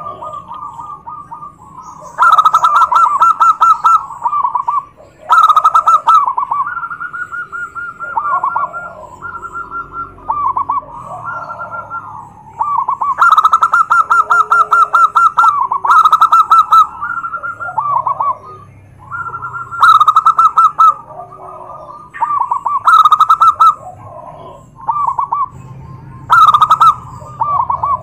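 Zebra doves (perkutut) cooing. Loud, rapidly pulsing coo phrases a second or two long repeat at irregular gaps, with quieter cooing in between. This is the territorial song used as a lure to make rival doves answer.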